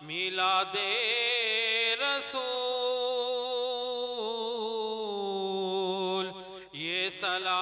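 A voice chanting an Urdu salam, a devotional salutation to the Prophet, in long drawn-out notes that waver up and down. There is a brief break about six and a half seconds in.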